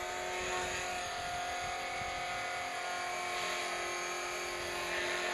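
Rotorscale AS350 450-size electric RC helicopter in flight: a steady whine from its motor and rotor.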